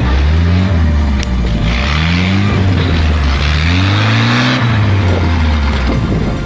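A GAZ-69's four-cylinder engine revving in repeated surges as the 4x4 pushes through deep mud. For a couple of seconds midway a rushing hiss of churned mud from the wheels joins it.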